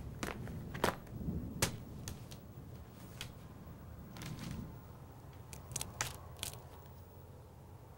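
Irregular light clicks and clacks of small hard objects being handled and set down in an open case, about ten over the span, with the sharpest ones a little under a second and about a second and a half in, and a cluster around six seconds.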